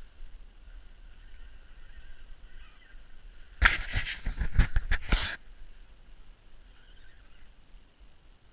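Handling noise on a body-worn camera: a burst of rustling and knocking lasting about a second and a half, starting a few seconds in, as the angler moves the spinning rod.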